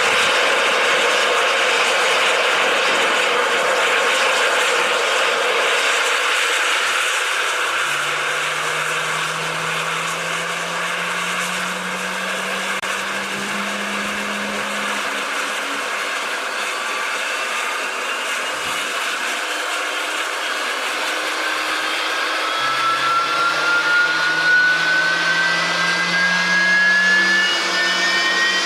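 Jet aircraft engine running with a steady whine, its pitch rising steadily over the last several seconds as the engine spools up.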